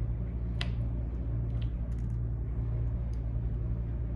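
Steady low hum with a few faint, short clicks, the sharpest about half a second in: the untwisted UTP cable's wire ends being snipped off to even length.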